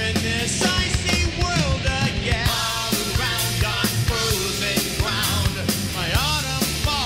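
Rock music with a singing voice over a steady drum beat and bass.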